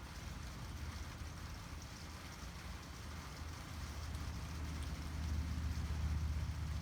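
Steady rain falling during a thunderstorm, heard as an even hiss, with a low rumble underneath that grows louder about four to five seconds in.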